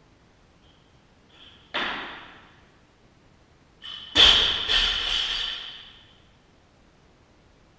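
Two clanging impacts, the second louder, with a couple of quick rebounds and a high metallic ringing that fades over about two seconds.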